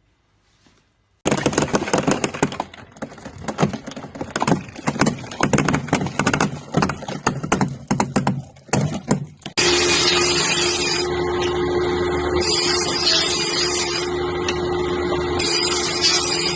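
Rapid, irregular knocking and crackling for about eight seconds, then a sudden change to a steady machine noise with a constant hum, its high hiss cutting in and out.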